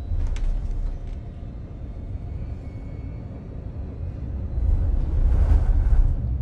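Low, steady rumble of an airliner cabin in flight, swelling a little louder near the end.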